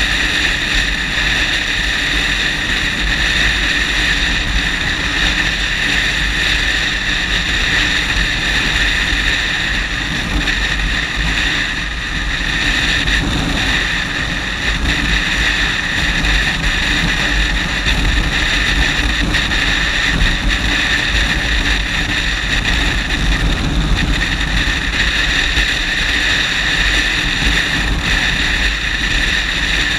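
Steady wind rush over a helmet-mounted action camera's built-in microphone at motorway speed, with the even drone of a Yamaha FZ6 Fazer's inline-four engine holding a constant cruise.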